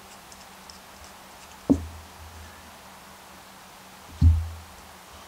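Two dull thumps about two and a half seconds apart, the second louder, with a few faint clicks of small metal parts, as a small-engine carburetor is handled and its float bowl bolt is taken out by hand.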